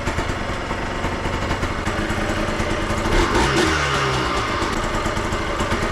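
Freshly rebuilt 2003 Yamaha Blaster's single-cylinder two-stroke engine running on its first startup, with a brief rev about halfway through. It runs evenly and sounds nice and tight.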